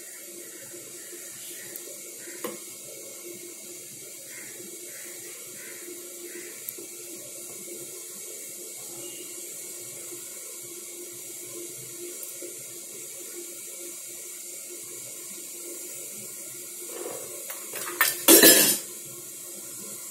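Steady hiss with a few faint taps of a ladle against a steel idli mould while batter is poured. Near the end comes a loud, brief clatter of stainless steel idli plates knocking together as they are handled and stacked.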